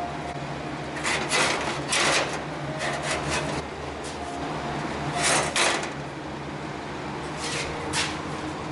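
Sheet-metal patch piece being handled and worked, with about six short scraping, rubbing bursts of metal against metal over a steady low hum.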